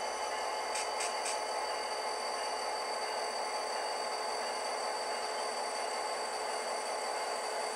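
Model train running on the layout: a steady whirring and rolling noise, with three quick high ticks about a second in.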